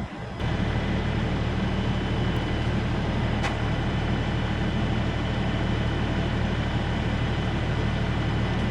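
Tractor engine running steadily under load while it lifts and places the sawmill head, with one brief tick about three and a half seconds in.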